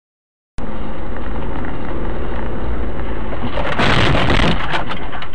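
Vehicle road and engine noise picked up by a dash camera, cutting in abruptly about half a second in, with a louder, harsher rush of noise around four seconds in.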